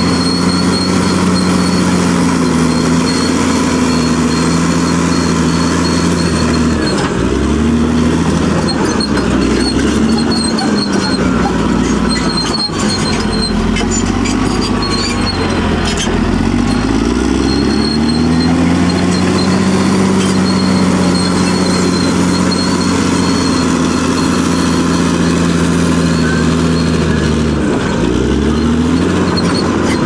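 Caterpillar D6R XL bulldozer's diesel engine running hard while the machine pushes soil. The engine's pitch dips and climbs back several times, with a faint high whine and a few knocks near the middle.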